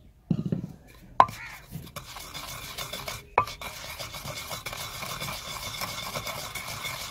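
Pestle crushing and grinding dry spices (dried red chillies with ground coriander, cumin, turmeric and chilli powder) in a stone mortar. A dull thud and two sharp knocks of the pestle come in the first few seconds. Then a steady gritty grinding and rubbing follows.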